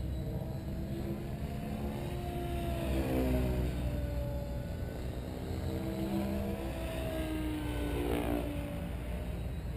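Synergy E7se electric RC helicopter flying overhead: the whine of its motor and rotors, the pitch swinging down and back up twice as it manoeuvres.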